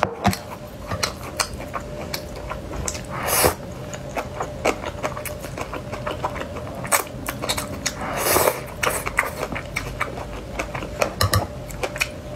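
Close-up eating of sauced noodles: wet chewing and smacking clicks, with two longer slurps as noodles are sucked in, about three seconds in and again about eight seconds in.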